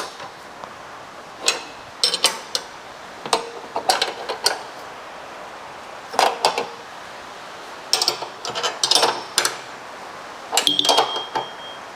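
Hand tools on bull bar mounting bolts and steel plates, making short clusters of metallic clicks and clinks about every one to two seconds as the bolts are checked for tightness.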